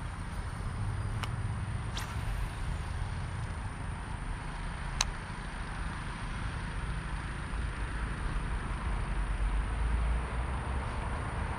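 Steady outdoor background noise: a low rumble with an even hiss above it. Three sharp clicks come through it, the loudest about five seconds in.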